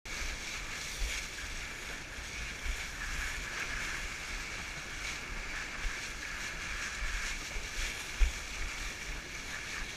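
Wind rushing over the microphone while kitesurfing on the sea, a steady hiss of wind and water with irregular low buffeting thumps, the sharpest about eight seconds in.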